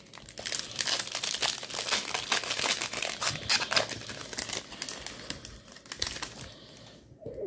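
Foil wrapper of a 2021 WNBA Prizm trading-card pack being crinkled and torn open by hand: dense, rapid crackling, loudest in the first four seconds and thinning out after.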